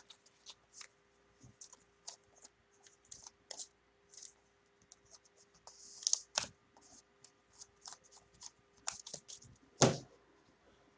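Trading cards being handled by hand: scattered light clicks and scratches, a brief rustle about six seconds in, and a louder knock near the end.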